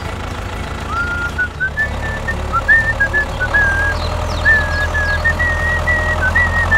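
Tractor engine sound running steadily with an even chug. From about a second in, a high whistle-like music melody plays over it.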